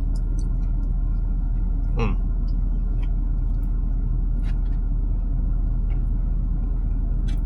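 Steady low rumble of an idling vehicle engine, with a few faint clicks and a short rustle about two seconds in.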